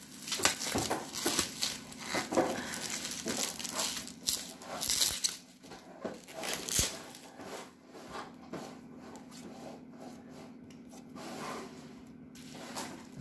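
Plastic bubble wrap being pulled apart and unwrapped by hand, crinkling and rustling. The crackles are dense for about the first six seconds, then thin out to occasional faint rustles.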